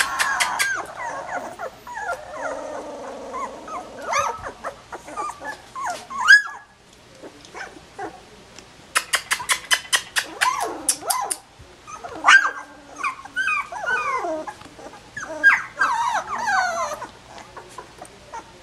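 Sixteen-day-old collie puppies whining and yelping, in bouts of high squeals that rise and fall in pitch, the loudest a sharp rising squeal about six seconds in. A quick run of clicks comes at the start and again about nine seconds in.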